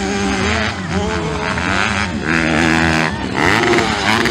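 Youth motocross dirt-bike engines revving hard on the track, their pitch rising and falling as the riders work the throttle, with louder surges about two seconds in and again about three and a half seconds in.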